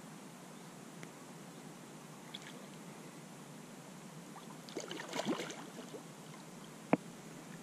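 Steady faint outdoor background hiss, with a brief patch of rustling and crackling about five seconds in and a single sharp click near the end.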